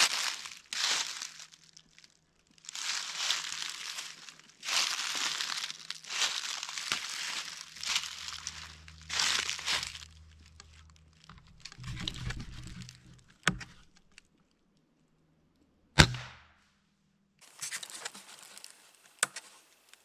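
Footsteps crunching through dry fallen leaves in a string of bursts, followed by a couple of sharp cracks, the loudest about two-thirds of the way through.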